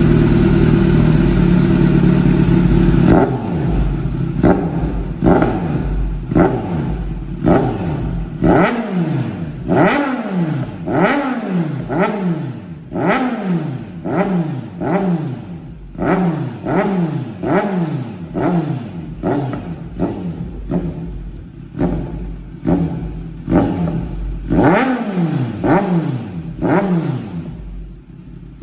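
Kawasaki Z900 inline-four with a Proformance aftermarket exhaust, held at steady high revs for about three seconds, then revved in quick throttle blips over and over, each rev rising sharply and dropping back, roughly once a second.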